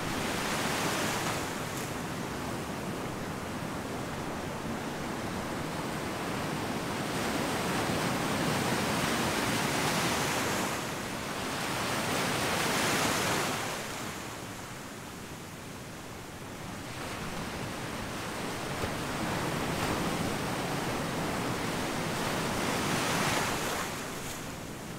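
Ocean surf breaking and washing on the shore, a steady rushing wash that swells and eases every few seconds as waves break.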